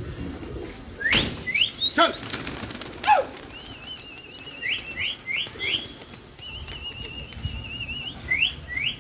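Flock of domestic pigeons flying overhead, wings flapping, with a sharp burst of flapping about a second in. High, rising whistled chirps repeat over it, several in a quick run near the end.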